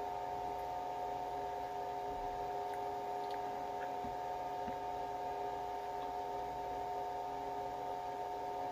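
Steady electrical hum of a small room, with a few faint, soft clicks.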